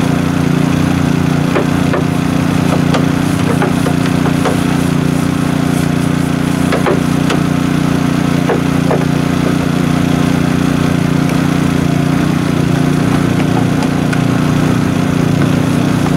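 A small engine runs at a steady idle, with scattered light knocks and taps as a brush scrubs over plastic engine-bay covers.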